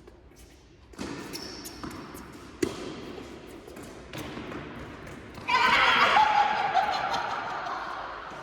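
Tennis ball hits with a sharp crack about two and a half seconds in, then from about five and a half seconds a loud, high-pitched vocal cry that trails off toward the end.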